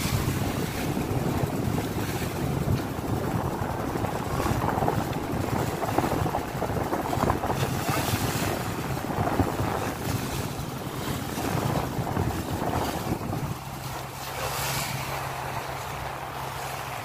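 A fishing boat's inboard engine drones steadily as the boat runs under way, with water rushing along the hull and wind buffeting the microphone. The rushing eases somewhat about three-quarters of the way through, leaving the engine hum plainer.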